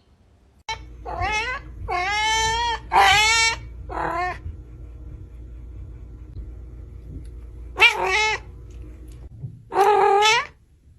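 A cat meowing: four meows in quick succession over the first few seconds, some drawn out, then two more later on.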